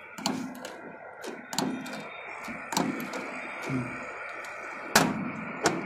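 Hand lever riveting tool fixing a number plate to a pickup's steel bumper: a series of sharp metallic clicks and knocks, one every second or so, the loudest about five seconds in.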